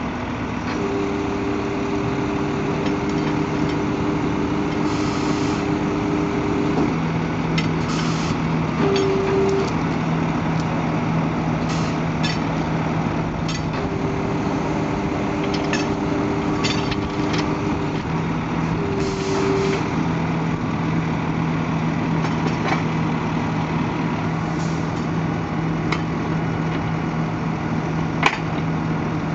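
Volvo FM 330 truck's diesel engine running steadily while it drives the skip loader's hydraulics; a steady whine comes in twice as the swing arms are worked, with short hisses and scattered sharp clicks.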